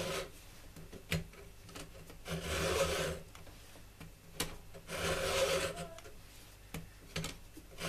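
Stihl 2-in-1 chain filing guide, a 5.2 mm round file and a flat file in one holder, rasping across a 3/8 pitch chainsaw cutter, sharpening the cutter and filing down its depth gauge in the same strokes. The strokes are slow and come about every two and a half seconds, with a few light clicks between them.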